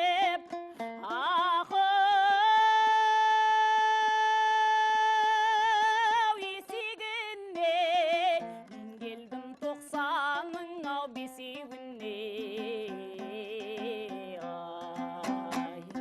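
Kazakh terme song: a singer holds one long note with vibrato for about four seconds, then sings shorter phrases over a plucked string instrument.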